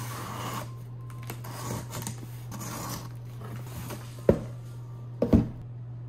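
A box cutter slicing packing tape on a cardboard shipping box, then cardboard scraping and rustling as the box is handled, with two sharp thuds about a second apart near the end as boxes knock down on the table. A steady low hum runs underneath.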